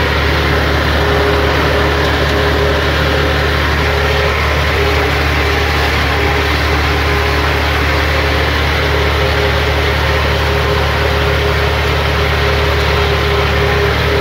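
Massey Ferguson tractor's diesel engine running steadily at a constant speed while mowing, heard from the driver's seat.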